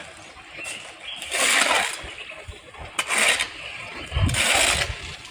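A steel shovel scraping through and turning damp sawdust compost mixed with wheat bran and quicklime on a concrete floor: three scraping strokes, each under a second long.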